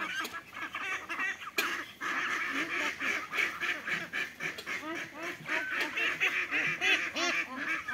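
A flock of domestic ducks quacking, many calls overlapping at once.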